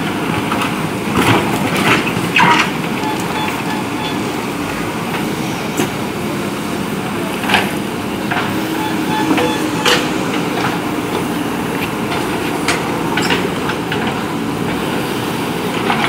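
JCB 3DX backhoe loader's diesel engine running steadily under load as the backhoe digs and swings. Scattered sharp clanks and knocks come through, several of them within the first few seconds.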